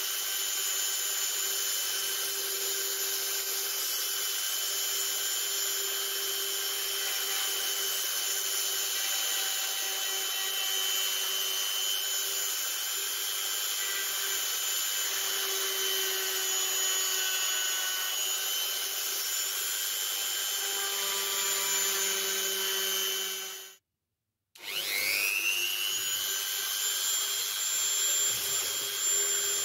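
Rotary multitool (Dremel type) with a carving bit running at a steady high whine as it cuts into softwood. About 24 s in the sound cuts off for a moment, then the tool spins back up with a rising whine and runs steadily again.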